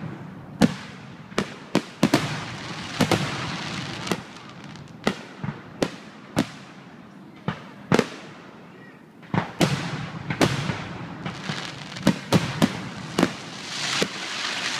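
Aerial fireworks shells bursting in quick, irregular succession, about one to two sharp bangs a second, with a continuous noisy rush between the bangs that swells near the end.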